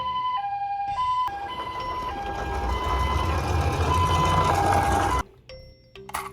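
Japanese ambulance two-tone siren sounding, a higher and a lower note taking turns about every half second, over a low steady rumble. It cuts off suddenly about five seconds in.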